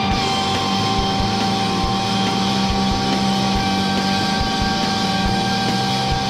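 Sikorsky CH-53K King Stallion heavy-lift helicopter in forward flight: a steady high whine from its three turboshaft engines and transmission over the low throb of the main rotor.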